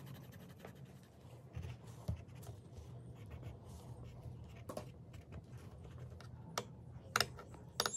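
A colouring tip scratching and rubbing over paper as a drawing is filled in by hand, quiet and continuous. A few light clicks come in the second half.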